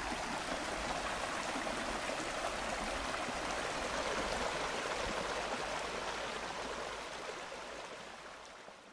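Small waterfall cascading over mossy rocks: a steady rush of falling water that fades out over the last couple of seconds.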